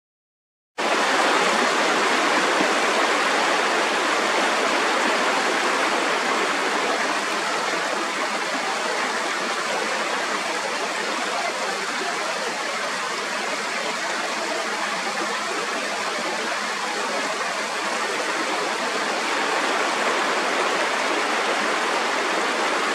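Mountain stream rushing steadily over rocks, starting about a second in.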